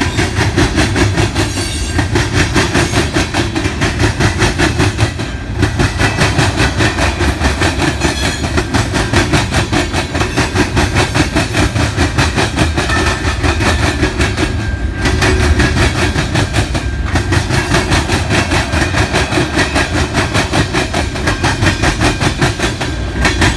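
Freight cars of a mixed freight train rolling past, their steel wheels clicking over the rail joints in a rapid, even clickety-clack, with a few brief lulls.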